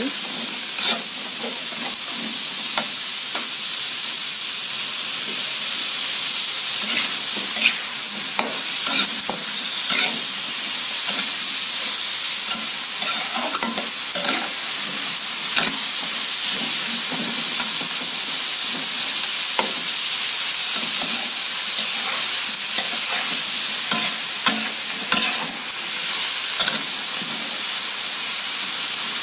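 Sliced chayote and carrot sizzling in a hot wok, stir-fried with a metal spatula that scrapes and clinks against the pan now and then over a steady frying hiss.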